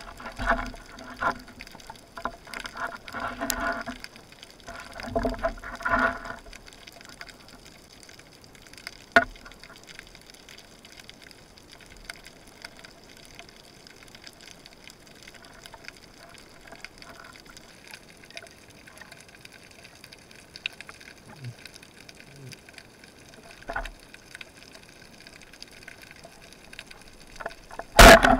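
Underwater water noise heard through a camera's waterproof housing: clusters of louder sloshing and handling sounds for the first few seconds, then a low steady hiss with a single sharp knock. A short, very loud burst comes near the end.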